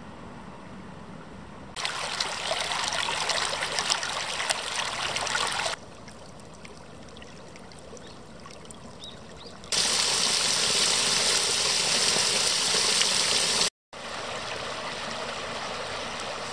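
A shallow stream running and trickling over stones, heard in several clips joined with abrupt changes in loudness. A louder trickling stretch starts about two seconds in. The loudest part is a steady rush of water in the middle, which cuts off suddenly.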